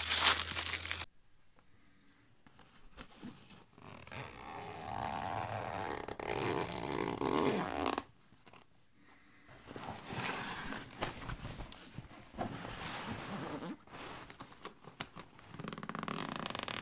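Footsteps crunching through dry leaf litter, the loudest sound, cut off about a second in. Then a soft fabric bow case is handled in several stretches of rasping zipper and fabric noise, and a zipper starts opening near the end.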